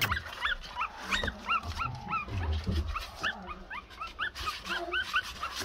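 Pomeranian puppies whimpering and squeaking: a run of short, high calls that rise and fall, two or three a second.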